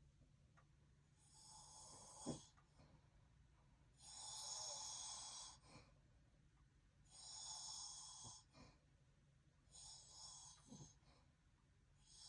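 Faint snoring of a man with sleep apnea, a rasping breath about every three seconds, five in all, with the strongest about four seconds in. A brief tick sounds about two seconds in.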